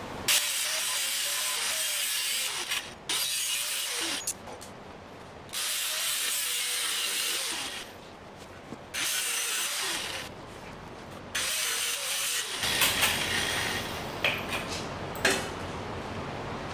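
A hand ratchet turning bolts in several short rasping bursts. Near the end, loose metal parts clank a few times while they are handled.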